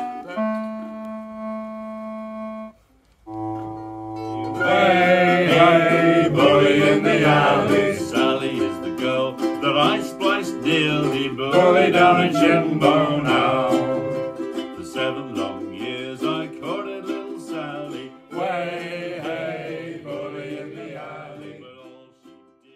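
A small folk group playing and singing a song: strummed ukuleles and mandolin under voices. It opens with a few held chords, breaks off briefly about three seconds in, comes in fully a second or so later and fades out near the end.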